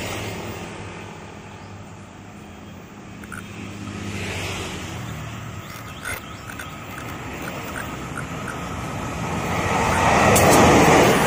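CC203 diesel-electric locomotive hauling a passenger train, approaching along the track. Its engine and wheel noise build over the last few seconds and are loud as it reaches the camera, with a few sharp clicks about ten seconds in.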